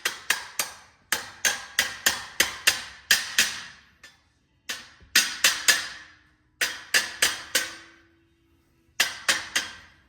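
Hammer blows on the stuck steel wheel of a 1948 Diamond T 509 truck, in quick runs of three to five blows with short pauses between, each hit ringing briefly. The wheel is being freed where a cracked ring has bound it up.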